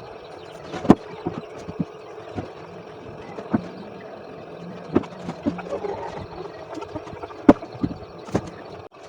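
Irregular knocks and clicks of parts and tools being handled and fitted during assembly, over a faint steady hum.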